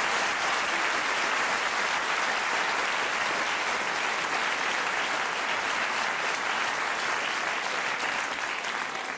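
Theatre audience applauding, steady sustained clapping that thins out near the end.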